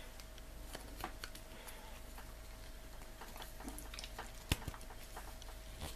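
Faint small clicks and rubbing of plastic parts as the replacement element assembly is forced into the yellow plastic handle of an Antex SX25 soldering iron, with a sharper click about four and a half seconds in. The part is too tight to go in.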